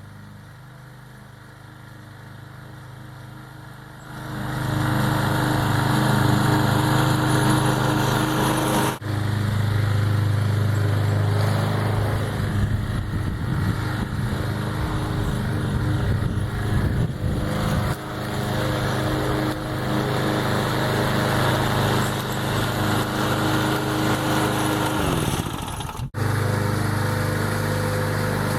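Walk-behind lawn mower's small engine running, coming in loud about four seconds in after a quieter low hum, its steady note wavering in places and sagging in pitch briefly near the end; the sound breaks off abruptly a few times.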